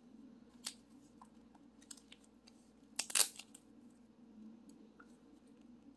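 Paper-backed glue dots being handled: a dot is pulled and peeled from its sheet in short crinkly rustles and ticks, the loudest cluster about three seconds in.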